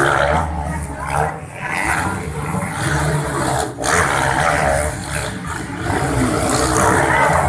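Racing motorcycles' engines running and revving on a dirt grasstrack, with spectators talking; the bikes come closer near the end.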